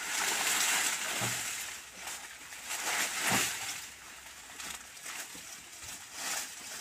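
Dry banana leaves rustling and crackling as they are handled and packed onto a truck load. The noise swells and fades several times.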